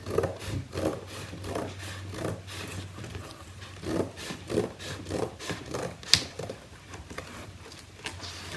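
Scissors cutting along a long strip of paper: a run of irregular snips and paper rustle, with one sharp click a little after six seconds.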